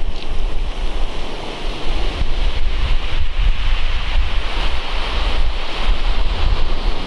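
Surf breaking and washing over a shingle beach, the hiss of the wash swelling in the middle, with wind buffeting the microphone in a low rumble throughout.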